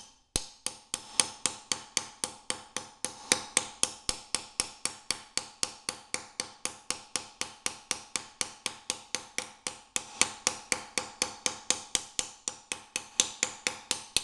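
A small ball-peen hammer striking a 14-gauge steel plate in rapid, even blows, about five a second, each with a short metallic ring, as the plate is dished into a curve.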